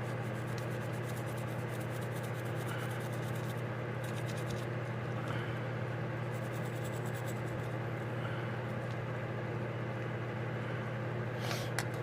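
Small wire brush scrubbing brass carburetor parts, in two spells of rapid scratching, over a steady low hum. A couple of sharp clicks near the end.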